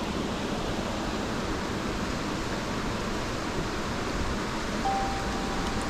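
Small stream rushing steadily over stones. Near the end, a thin steady tone is heard for about a second.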